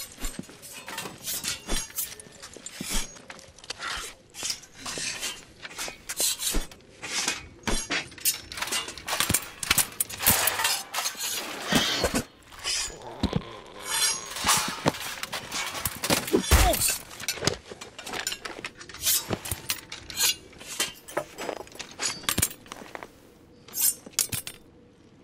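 Metal weapons and armour dropped one after another onto a growing pile: a long, busy run of clanks, clinks and clatters, with one heavy thud about two-thirds of the way through.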